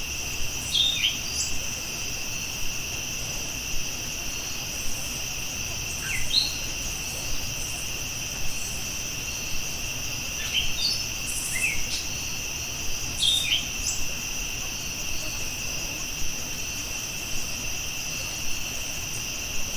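Steady high insect chirring, with short bird chirps now and then, none in the last few seconds.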